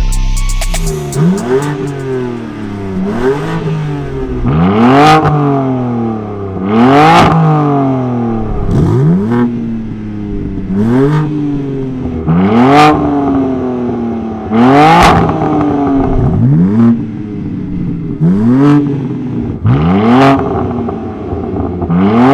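BMW G80 M3's twin-turbo inline-six, breathing through a Dinan exhaust with a Kies valve controller, revved again and again: about ten blips, roughly one every two seconds, each rising sharply in pitch and falling back.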